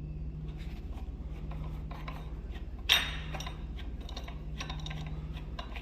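Small metal clicks and rattles of lock hardware being handled as a part of a mortise lock's trim is worked off, with one sharp clack about three seconds in. A steady low hum runs underneath.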